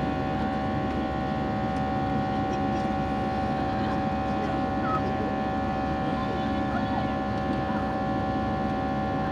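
Airliner cabin noise in an Airbus A321 in flight: a steady rush of air and engine noise with several steady droning tones over it.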